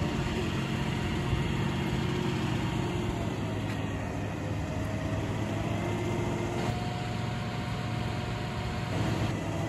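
Boom truck's engine running steadily, powering the Giuffre crane's hydraulics as it hoists a load.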